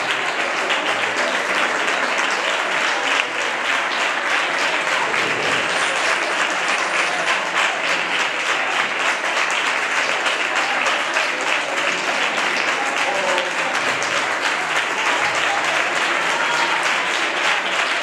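Audience applauding, many hands clapping in a dense, steady patter, with a few voices faintly in it.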